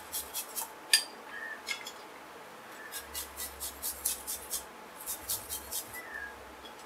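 Garlic clove rubbed on a flat stainless-steel hand grater: faint, quick scraping strokes, scattered at first, then in runs of about five a second.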